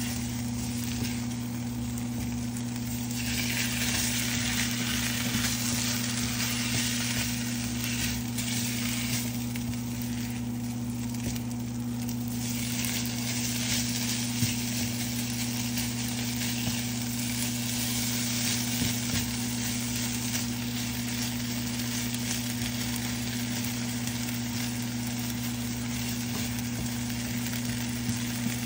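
Chicken sizzling in a nonstick frying pan as it is stirred and pushed around with tongs, with a few faint clicks of the tongs against the pan. A steady low hum runs underneath the sizzle.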